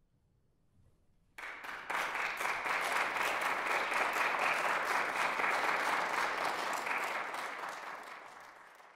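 Audience applauding. After a hush, the clapping breaks out suddenly about a second and a half in, holds steady, then fades away near the end.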